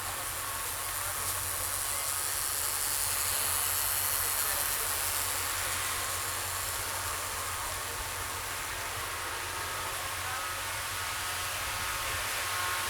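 Steady outdoor ambience: a broad, even hiss with a low rumble underneath and a faint murmur of distant voices.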